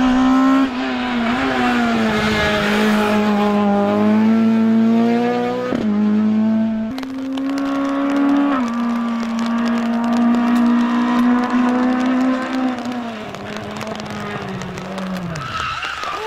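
Renault Clio Maxi Kit Car rally car's four-cylinder engine revving hard at high, nearly steady revs under full throttle, with a few brief dips. The revs fall away near the end.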